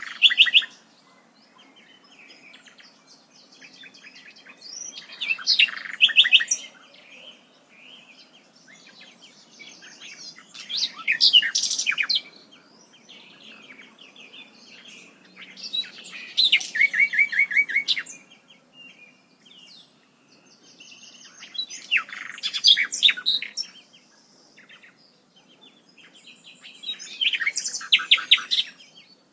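A bird singing: loud bursts of quick repeated high notes about every five to six seconds, each lasting a second or two, with fainter chirps between.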